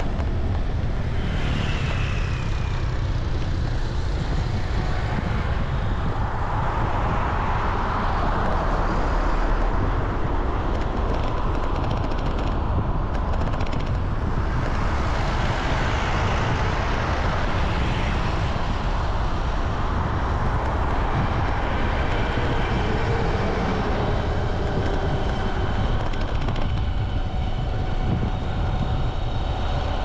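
Steady road traffic noise: vehicle engines and tyres running continuously, with a strong low rumble throughout and a few faint engine tones drifting in pitch as vehicles pass.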